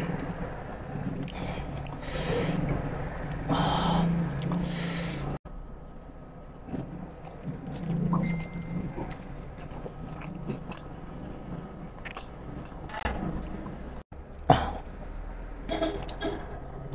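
Close-miked chewing and wet mouth sounds of a person eating pork siomai (steamed dumplings) with chili garlic oil. There are a few loud breathy puffs a couple of seconds in.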